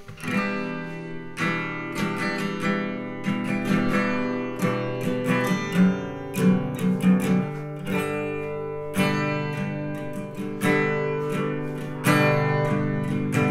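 A recording of an acoustic guitar being picked and strummed, played back through a homemade four-way speaker built from PVC pipe, with drivers firing in different directions.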